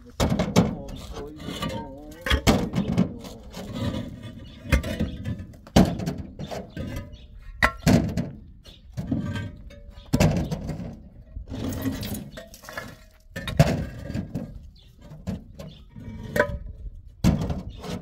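Irregular knocks and thuds, one every second or so, each sudden and sharp.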